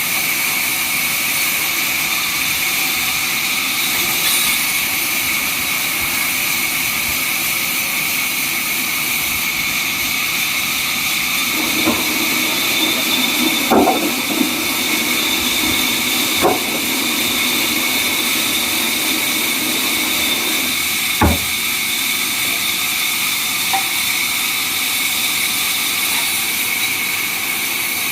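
Sawmill saw running steadily with a constant high whine, with a few sharp knocks of timber or machinery in the middle, the loudest about three quarters of the way through.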